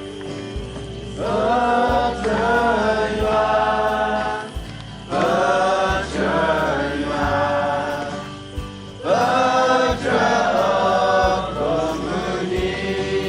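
A group of voices singing a gospel hymn together, in three phrases that each begin about four seconds apart.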